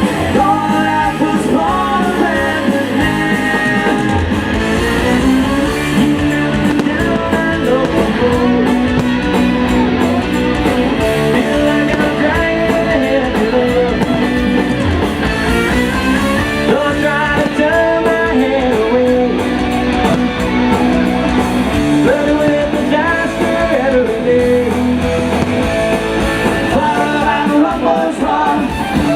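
Live rock band playing, with electric guitar prominent.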